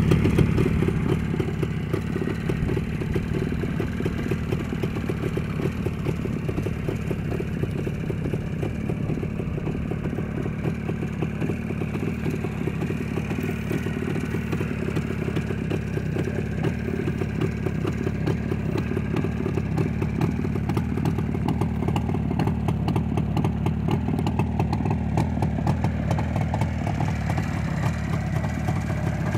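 ČZ 350 Typ 472.6 motorcycle's two-stroke twin-cylinder engine idling steadily, with a rapid even exhaust pulse.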